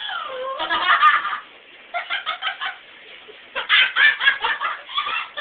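High-pitched laughing in rapid giggling bouts, opening with a squeal that falls and then rises in pitch.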